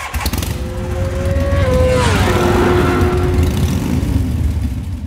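Logo sting sound effect: a loud low rumble with a held tone that slides down in pitch about two seconds in, fading out near the end.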